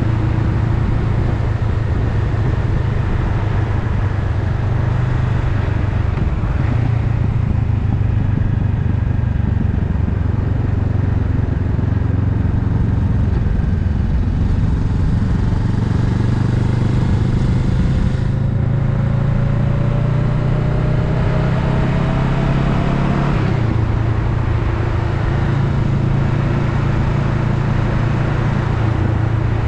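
Honda Rebel 500's parallel-twin engine running steadily under way, over a constant rush of wind and road noise. A tone rises slowly from about halfway through, then the engine note drops about three quarters of the way in.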